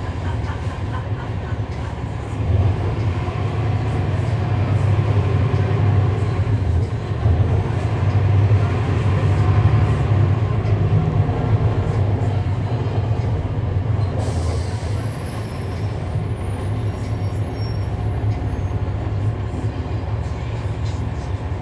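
Cummins ISL9 inline-six diesel of a NABI 40-foot transit bus, heard from on board as the bus drives along. A low, steady engine drone swells a couple of seconds in, peaks around the middle and eases off about two-thirds through, where a short hiss is heard.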